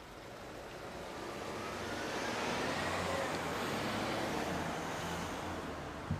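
A car, a white SUV, drives past close by, its tyre and engine noise swelling to a peak midway and then fading. A short sharp knock comes just before the end.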